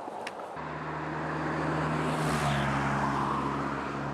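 Highway traffic passing: a car's tyre hiss swells and peaks about two seconds in over a steady low engine hum, with the road noise building toward the end.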